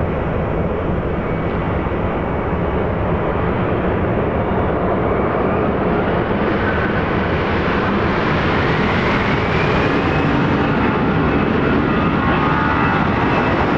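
Turbofan engines of an Allegiant Airbus airliner heard from inside the cabin during takeoff and climb: a steady, loud rushing noise with an engine whine that rises in pitch about halfway through, then holds as several steady tones.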